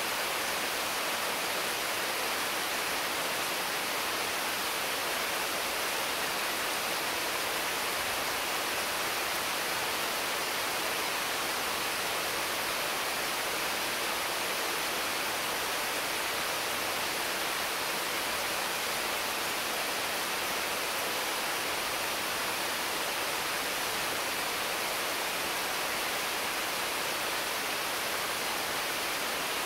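Heavy rain falling steadily on the leaves of mango and papaya trees: an even, unbroken hiss with no single drops or thunder standing out.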